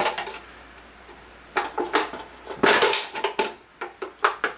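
Plastic bottle crackling and clicking in clusters of sharp crinkles as it is handled and pierced while holes are burned into it.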